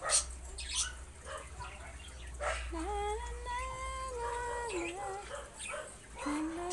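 A husky puppy giving one long howl of about two seconds that rises, holds and falls in pitch, with a shorter whine near the end and a few short yelps near the start.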